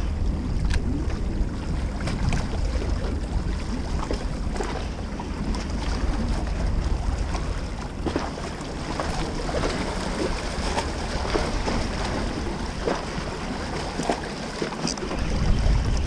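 Wind buffeting the microphone with a low rumble, over the wash of small waves against a rocky shore, with scattered light clicks throughout.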